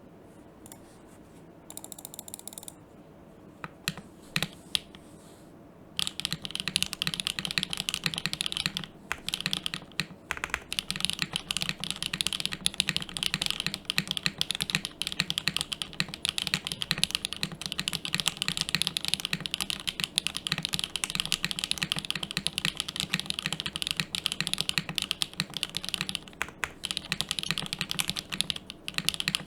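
Typing on a custom Mc65 mechanical keyboard: top-mounted, undampened, with a polypropylene (PP) plate, stock HMX KD200 switches and GMK Cluck keycaps. A few single key presses come first, then fast, steady typing starts about six seconds in.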